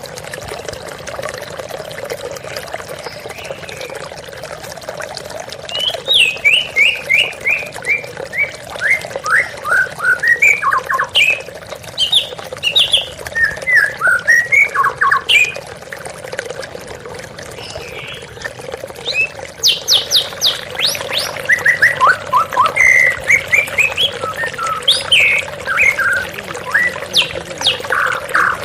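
White-rumped shama (murai batu) singing over the steady splashing of a waterfall: two long bouts of quick, varied notes, many in falling runs, starting about six seconds in and again about twenty seconds in.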